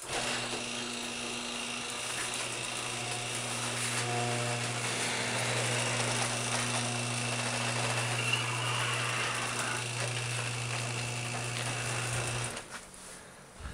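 Electric garage door opener running as it raises the door: a steady motor hum that starts at once and cuts off about twelve and a half seconds in.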